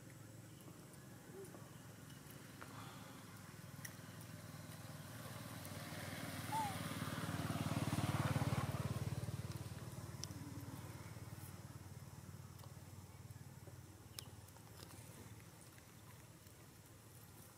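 A motor vehicle passing by: its engine rumble grows louder to a peak about eight seconds in, then fades away.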